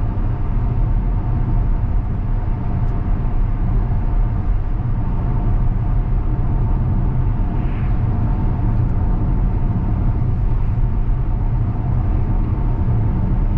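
Steady road and tyre noise heard inside the cabin of a Tesla Model X electric SUV driving along a wet country road: a deep, unbroken rumble with a faint steady hum above it.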